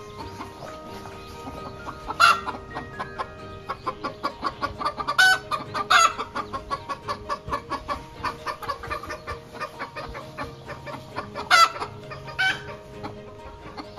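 Chickens clucking, with several louder calls standing out, over steady background music.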